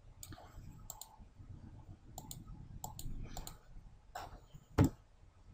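Computer mouse clicking, a scattered series of about ten short sharp clicks, with one louder click near the end.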